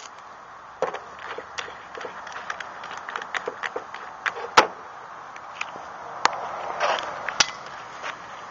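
Handling noises of a drill bit being fitted into a cordless drill's keyless chuck: scattered light clicks and taps, with one sharper click about halfway through. The drill is not run.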